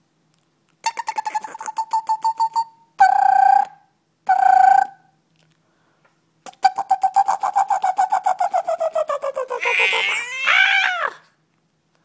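A baby vocalizing: a high held "ahh" that wavers in rapid pulses, two short calls, then a long pulsing note that sinks in pitch and ends in a high squeal that rises and falls.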